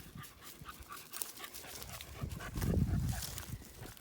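Dogs moving through woodland: scattered small crackles and rustles of paws on leaf litter and twigs, with a dog panting. A louder, low rustle comes about two and a half seconds in.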